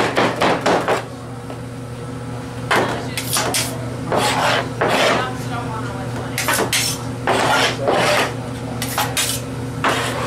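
A knife chopping and scraping smoked pork butt on a cutting board: a quick run of chops at first, then a pause, then short bursts of strokes. A steady low hum runs underneath.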